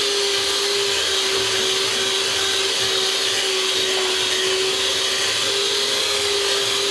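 Electric hand mixer running steadily, its motor whining at one constant pitch over a hiss as the beaters churn thick brownie batter in a bowl.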